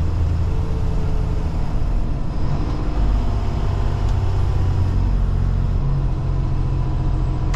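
Freightliner semi truck's diesel engine running with its engine brake (Jake brake) on to slow the truck, heard from inside the cab as a steady low drone.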